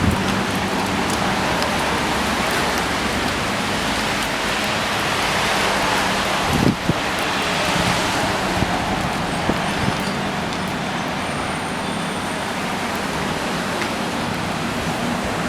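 Steady hiss of hard rain, with a car engine running underneath and a single thump about seven seconds in.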